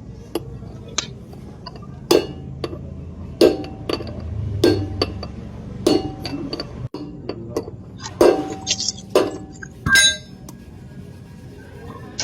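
Hammer striking a steel drift to drive a truck flywheel bearing: a string of about a dozen sharp metallic clinks at uneven intervals, the louder blows ringing briefly.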